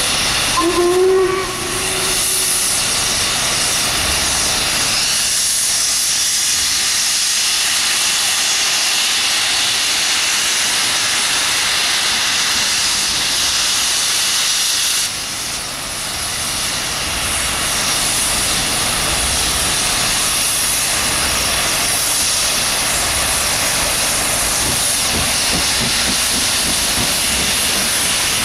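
Two LMS Stanier Black 5 4-6-0 steam locomotives hissing loudly and steadily: steam from the safety valves and from the open cylinder drain cocks as they start away. A short steam whistle blast sounds about a second in.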